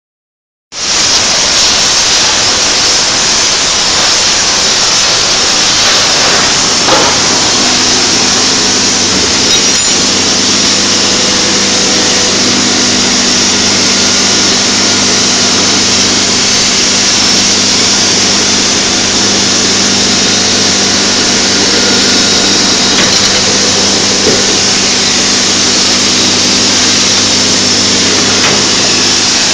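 Steady, loud hiss of oxy-fuel gas torches flame-heating flat steel bar, with a steady low machine hum joining about eight seconds in.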